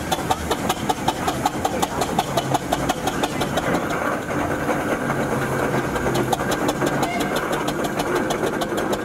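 Engine running at a steady speed with an even, rapid knocking beat of several strokes a second.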